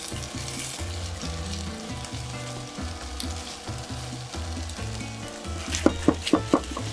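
Chicken breast pieces sizzling as they fry in oil in a frying pan. About six seconds in, a quick run of sharp clicks as the pieces are turned with chopsticks.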